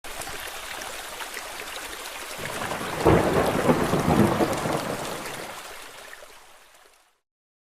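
Steady rain with a roll of thunder that breaks about three seconds in and slowly dies away, fading out before the end.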